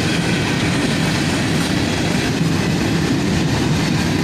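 A CSX unit train of empty hopper cars rolling past: a steady noise of steel wheels running on the rails.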